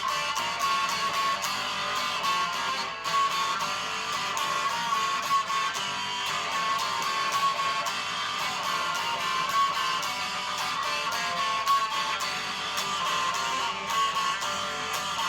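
Instrumental passage of a rock song: strummed electric guitar over a steady beat, with no singing.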